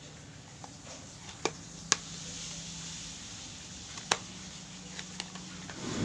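Handling noise from a plastic hair dryer housing being turned over in the hands: about five short sharp clicks and taps, the loudest about two seconds in. A faint steady low hum runs underneath.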